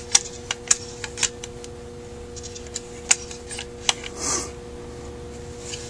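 Scattered light metallic clicks and taps as small carburetor parts and tools are handled on a workbench, with a soft rustle about four seconds in. A steady hum runs underneath.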